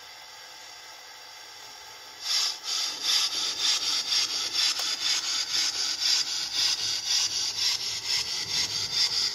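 Sound decoder of a Trix HO-scale 040 D steam locomotive model playing steady rhythmic steam chuffs, a few a second, starting about two seconds in after a faint steady hiss.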